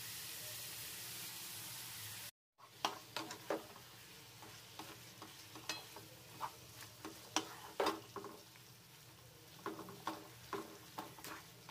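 Kohlrabi pieces and freshly added ground masala sizzling in oil in a non-stick pan, with a spatula scraping and stirring them at irregular intervals. A steady hiss runs for about two seconds, the sound drops out briefly, then a quieter sizzle continues under the repeated spatula scrapes.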